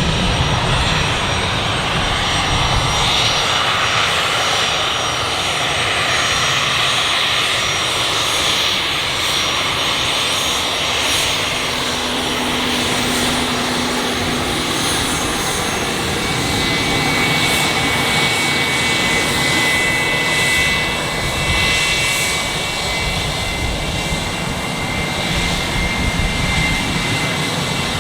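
Embraer Legacy 500 business jet's twin turbofan engines running with a steady rushing noise. A thin high whistle joins past the middle.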